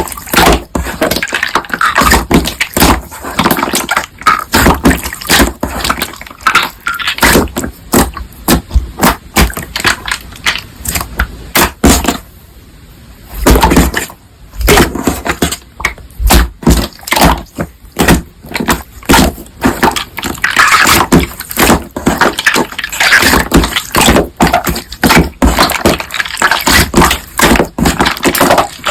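Crunchy slime squeezed and pressed by hand, giving a dense run of crackling, popping clicks, with a brief quieter pause about halfway through.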